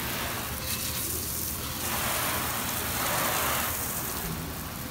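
Garden hose spray nozzle spraying water onto a car's painted body and window glass: a steady hiss of spray hitting the panels, growing louder about two seconds in and easing off near the end.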